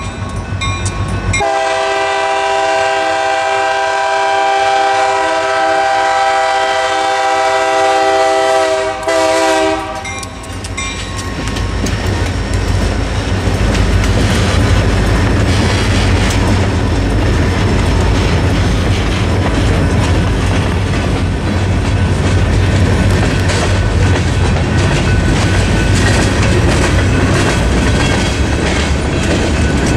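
EMD SD40-2 locomotive's air horn blowing for the crossing: a short break about a second in, then one long blast that ends about ten seconds in. Then the diesel locomotives rumble past, and a freight train of open-top gondola cars rolls by, wheels clacking over the rail joints.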